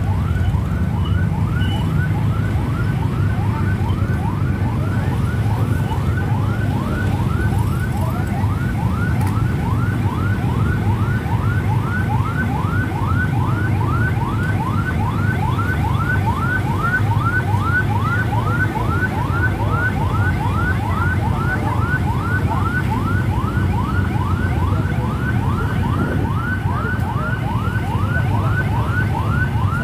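Electronic siren in a fast yelp: rapid repeated pitch sweeps, about three a second, without a break. Under it is the steady low rumble of many motorcycle engines riding in convoy.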